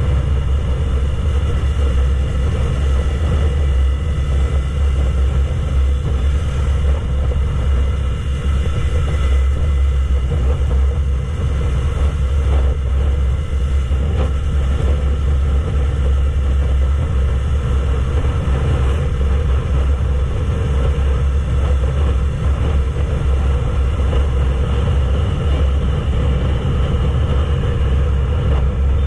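Yamaha YZF-R3 motorcycle riding along steadily, wind rumbling over the onboard camera's microphone. The bike's 321 cc parallel-twin engine runs at a steady pitch underneath.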